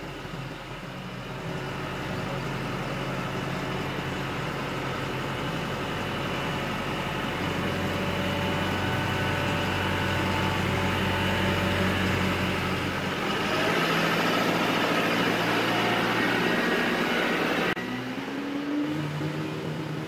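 Utility tractor engine running as the tractor maneuvers with an implement on its three-point hitch, growing louder partway through and loudest for a few seconds before dropping off suddenly near the end.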